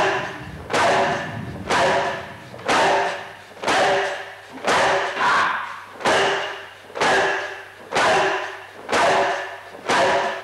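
Heavy drum beats struck at an even pace of about one a second, each ringing out and dying away with a reverberant tail.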